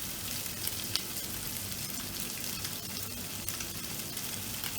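Pre-cooked chicken breast sizzling steadily in hot olive oil in a frying pan on high heat.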